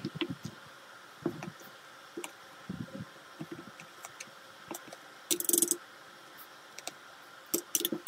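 A metal spoon scraping and scooping firm ice cream in a plastic tub, with irregular short scrapes and knocks. The longest scrape comes about five and a half seconds in.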